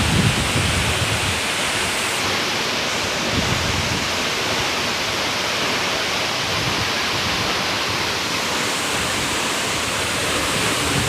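Waterfall: water falling and rushing with a steady, even hiss.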